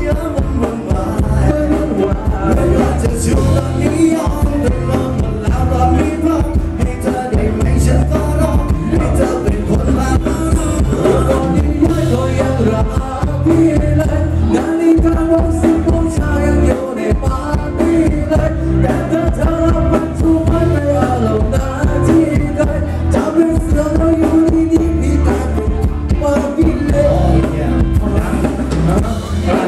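A live band with electric guitar and drum kit plays a Thai ramwong dance song with a steady beat, and a singer sings over it through the PA.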